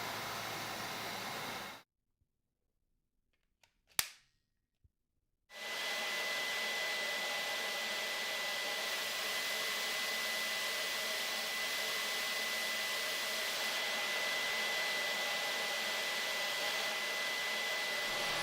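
Cordless stick vacuum motor running with a steady rush of air, cut off to dead silence for a few seconds broken by one sharp click, then running again with a steady high whine over the airflow.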